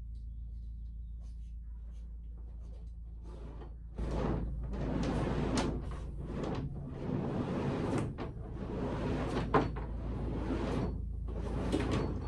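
Twin 6mm solar cables being fed down through a roof mushroom vent, scraping and rubbing as they slide, with several sharp knocks. The rubbing starts about four seconds in, after a few seconds of low hum.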